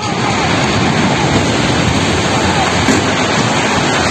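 A steady, loud rushing noise that comes in suddenly, with faint voices beneath it.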